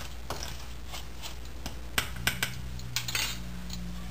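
A metal spoon stirring a dry powdery mix of milk powder, semolina and flour in a stainless steel bowl: soft repeated scraping, then a few sharp metal clinks about two seconds in.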